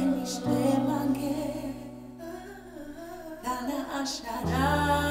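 A Christian praise song: a woman singing a slow melody over held electric keyboard chords.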